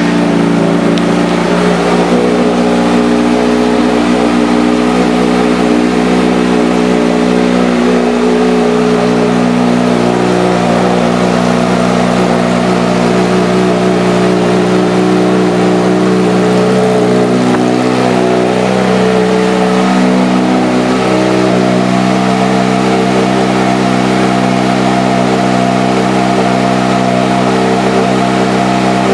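Kawasaki Ninja ZX-6R's 636 cc inline-four idling steadily through an aftermarket M4 slip-on exhaust, just after being started.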